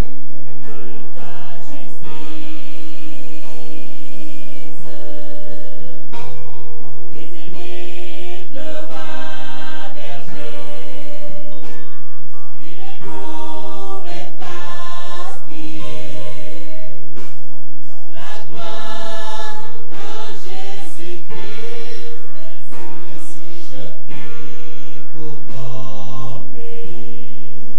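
Gospel choir singing over a steady bass line.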